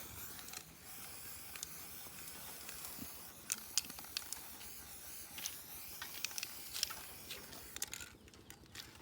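A steady hiss with sharp clicks and light taps scattered through it.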